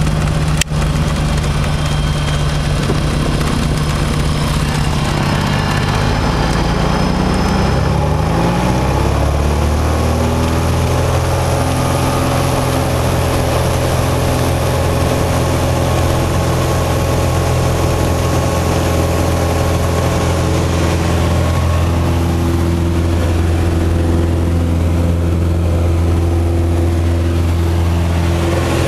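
Piper Turbo Arrow's turbocharged six-cylinder engine and propeller, heard from inside the cabin. The engine runs at low power at first, then is throttled up over a few seconds about a third of the way in, its pitch rising to a steady full-power drone for the takeoff roll.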